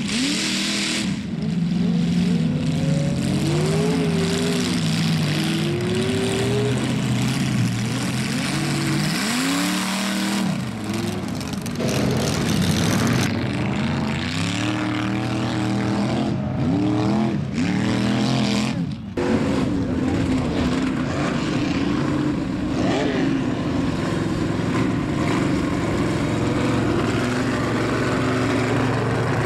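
Mega trucks' big engines revving up and down as they drive through a mud pit, the pitch climbing and dropping again and again. After about two-thirds of the way through, a closer truck's engine runs steadier with only small rises.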